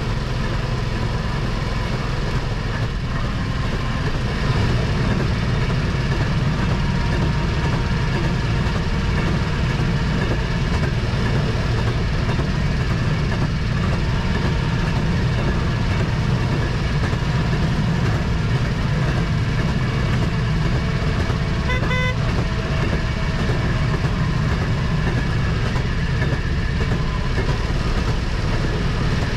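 A railroad speeder (rail motorcar) runs steadily along the track: its small engine and its wheels on the rails make an even drone. A brief high beep sounds about three-quarters of the way through.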